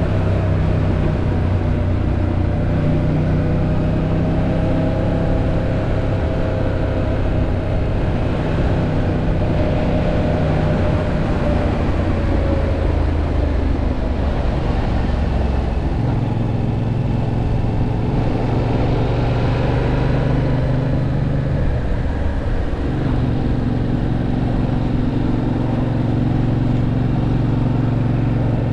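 Yamaha MT-07's parallel-twin engine running under way, heard from onboard, with wind and road noise. The engine note holds steady, then drops and changes pitch around the middle and again briefly about three-quarters of the way through.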